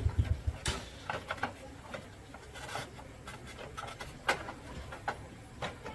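Irregular light clicks and knocks, with the strongest ones about a second in and past the middle, typical of tools and motorcycle parts being handled during repair work.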